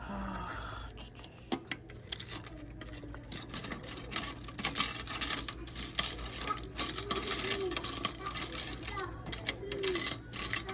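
Quarters clinking and jingling together in a rapid, dense run of metallic clinks, coins collected out of a gumball machine, starting about two seconds in.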